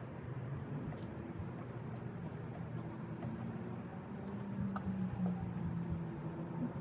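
A steady low mechanical hum, with a steadier pitched tone coming in about two-thirds of the way through, and a few faint clicks.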